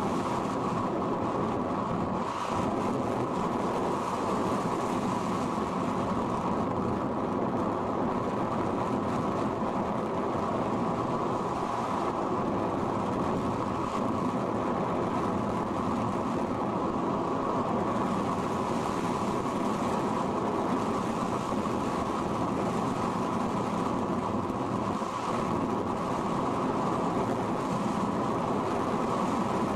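Steady rushing rumble of air streaming over an RC sailplane and its onboard camera in gliding flight, unchanging throughout.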